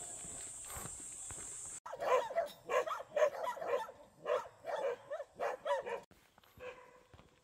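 Repeated short animal calls, about two a second, starting abruptly about two seconds in and fading near the end. Before them there is a steady high hiss.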